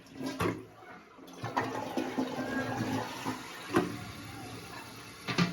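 Toilet tank refilling through a newly installed fill valve: a steady rush of running water, with a few short clunks, the loudest near the end.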